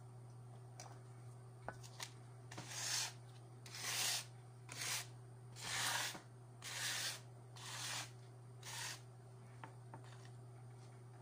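A hand rubbing at fabric in seven strokes, about one a second, each roughly half a second long.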